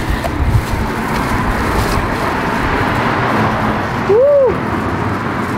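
Steady city street traffic noise. About four seconds in, a brief tone rises and falls once.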